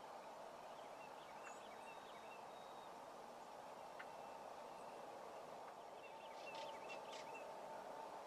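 Wild turkey gobbler gobbling faintly once, a quick rattling call about six and a half seconds in, over a steady outdoor hiss with small bird chirps.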